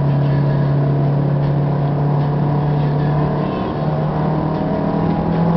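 Fiat Bravo's engine droning steadily inside the cabin at highway speed, with tyre and road noise. The engine note shifts slightly about three and a half seconds in.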